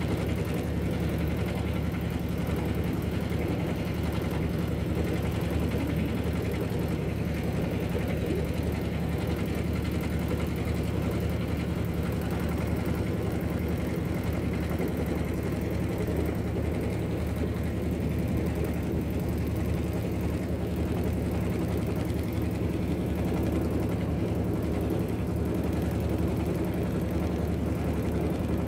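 Passenger river launch's engine running with a steady low drone, heard from on board, with a constant rushing noise over it.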